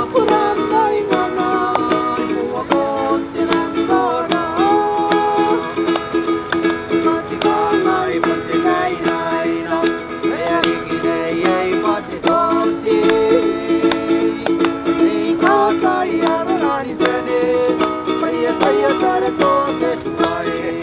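Ukulele strummed in a steady, quick rhythm, with a voice singing over it at times.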